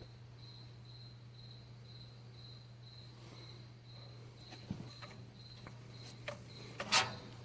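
A cricket chirping steadily, about three high chirps a second, over a low steady hum. Near the end there is a brief, louder burst of handling noise as the phone is set up.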